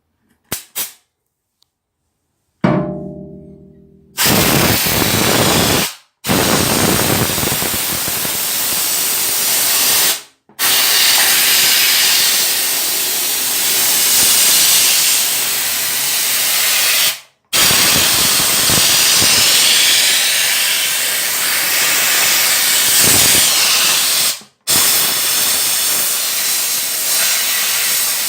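A loud, steady hiss in stretches several seconds long, each broken off by a sudden short gap. Before it starts there are a couple of clicks and a brief ringing tone that dies away.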